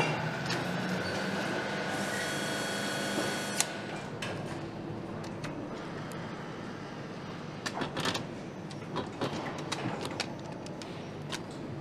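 Factory assembly-line noise: a steady machine hum, a hissing whir for about a second and a half starting about two seconds in, and scattered sharp clicks and clacks of parts and tools.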